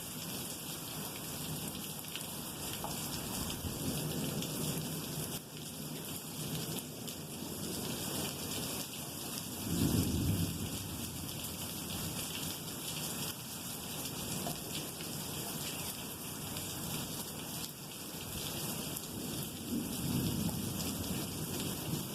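Steady rain falling, with low rolls of thunder rumbling about halfway through and again near the end.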